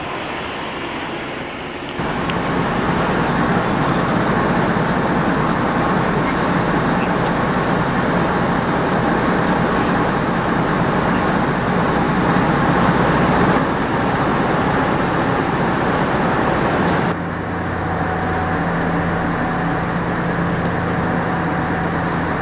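The MV Quinsam car ferry's engines running, heard from on board as a loud, steady drone with a low hum.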